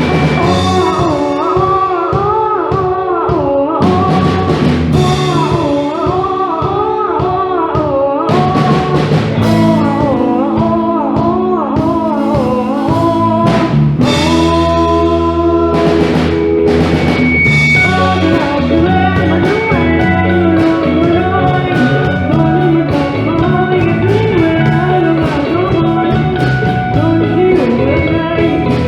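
A band playing, with drum kit and guitar, and a singer's melody wavering with vibrato over it.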